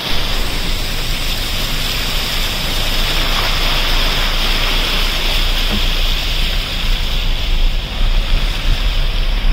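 Muddy floodwater rushing across flooded farmland: a loud, steady rush of flowing water.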